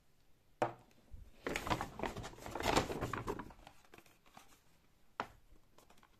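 A sharp knock as the plastic deodorant stick is set down on the table. Then a couple of seconds of crinkling and rustling as the cardboard toothpaste box is taken out of a paper shopping bag. Another short knock comes near the end.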